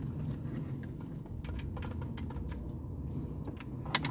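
Light plastic clicks and rattles of wiring and connectors being handled behind a car stereo as the antenna lead is plugged in, with a sharp double click near the end, over a steady low hum.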